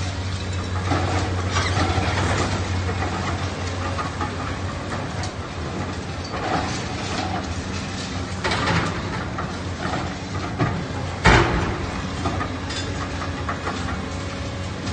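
Komatsu long-front demolition excavator's diesel engine running steadily as its claw tears into a building, with several bursts of tearing and falling debris and one sharp, loud crash about eleven seconds in.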